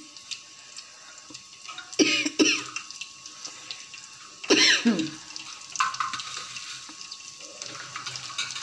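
A person coughing twice, about two and a half seconds apart, over a faint steady sizzle of dried red chillies and crushed garlic frying in oil for a tempering.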